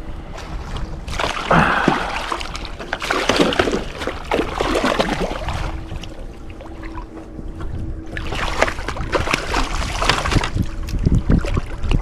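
Two stretches of choppy water splashing, a hooked gar thrashing as it is brought to the boat, over steady low wind noise on the microphone.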